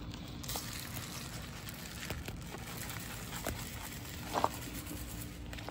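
Granular fertilizer shaken from a plastic bottle, the granules pattering steadily onto sweet potato leaves and soil, with a few light clicks.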